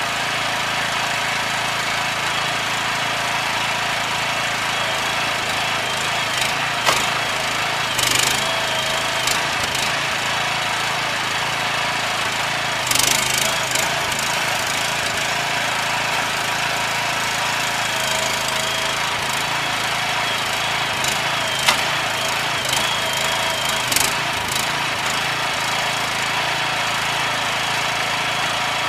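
Engine-driven machine running steadily, with a few sharp knocks and short bursts of hiss scattered through it.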